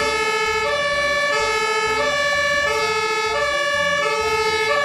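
Fire engine two-tone siren, alternating between a low and a high note about every two-thirds of a second.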